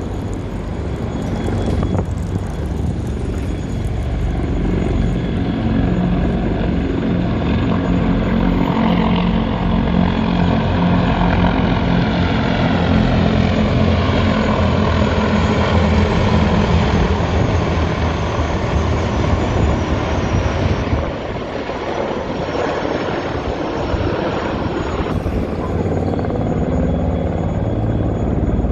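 Formation of military helicopters flying overhead: very loud, steady rotor chop with engine whine, some tones sliding as they pass. It eases briefly about three-quarters of the way through, then builds again as more helicopters arrive.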